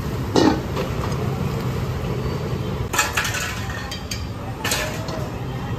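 Metal cookware clanking three times, sharp knocks of pans and utensils on a steel counter, over a steady low hum of street noise.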